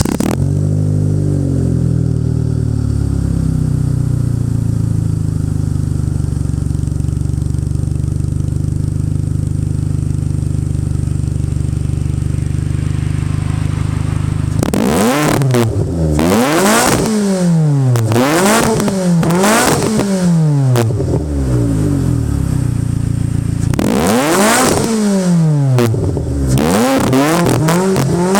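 Subaru Pleo's 660 cc four-cylinder engine running through a JIC KJR exhaust with its silencer removed. It settles from a fast idle to a steady idle, then about halfway through is blipped over and over, the revs rising and falling quickly. After a short pause it is blipped again.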